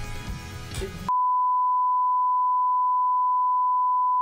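Television test tone, the single pure steady beep that goes with colour bars, starting abruptly about a second in and holding unchanged, used to cover a cut in the edit.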